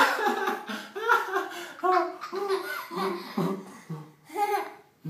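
A toddler and a man laughing together in a run of short bursts, the child's high-pitched and the man's deeper; the laughter dies away near the end.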